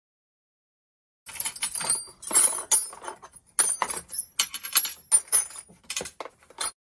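Hand tools on a workbench being handled: irregular metallic clinks and rattles that start about a second in and stop abruptly near the end.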